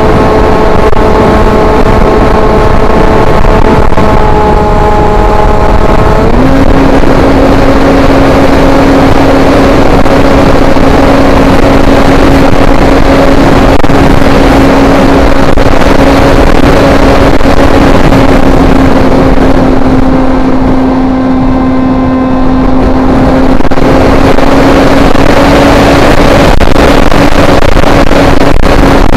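FPV foam RC plane in flight, recorded onboard: a steady motor-and-propeller drone over heavy wind rush. The drone shifts to a lower pitch about six seconds in and eases off briefly a few seconds before the end.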